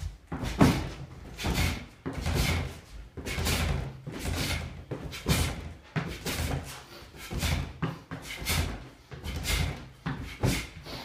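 Rhythmic workout noise, about one burst a second: the thuds and swishes of a person punching and moving on the floor through a shadowboxing-and-plank drill.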